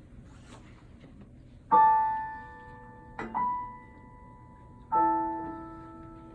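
Piano playing the introduction to a song. Starting about two seconds in, three chords are struck roughly a second and a half apart, and each is left to ring and fade.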